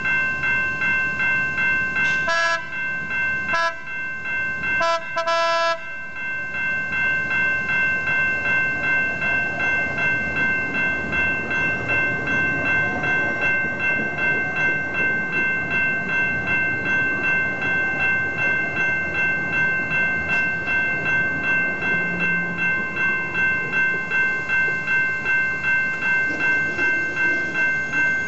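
Level-crossing warning bell ringing over and over at a steady rate while a San Diego Trolley light-rail car sounds several short horn blasts a few seconds in. The trolley then rumbles past over the rails, under the continuing bell.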